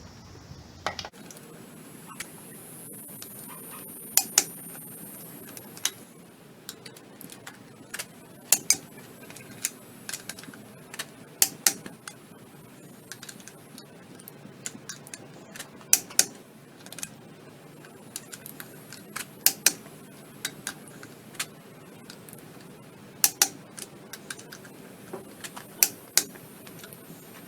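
Scattered sharp clicks and clinks, often in quick pairs, coming every second or two at no regular beat, over a low steady hum.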